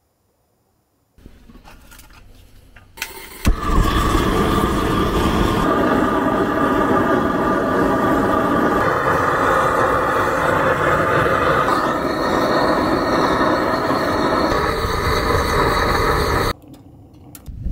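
Gas torch flame roaring steadily as it lights a wood stove, starting about three seconds in and cutting off suddenly about a second before the end.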